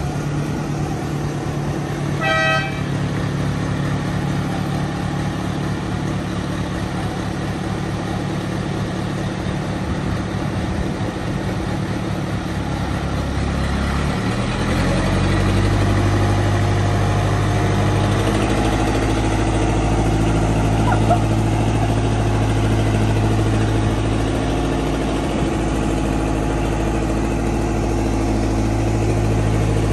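Engine of a boat travel lift running steadily as it drives across the yard with a boat slung beneath it. A short horn toot sounds about two seconds in, and the engine note rises and grows louder about fourteen seconds in.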